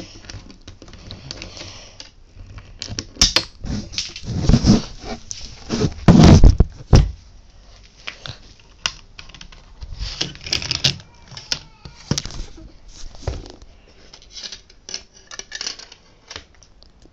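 Plastic toy pieces clicking, clattering and knocking on a wooden tabletop as a hand works a Lego brick launcher and moves the toys. The loudest run of knocks and thumps comes a few seconds in; scattered lighter clicks follow.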